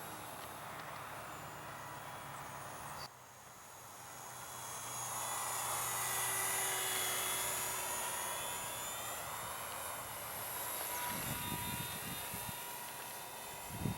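Small electric motor and propeller of a Parkzone Ultra Micro P-40 Warhawk RC plane whining in flight; about three seconds in the sound drops, then swells as the plane makes a pass, is loudest around the middle and fades away.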